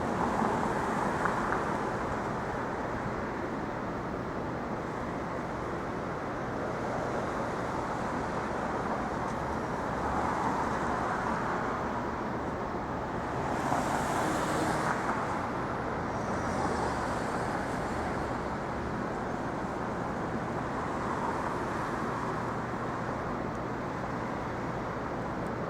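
Steady city street traffic noise, swelling a few times as vehicles pass, with a brief louder hiss about halfway through.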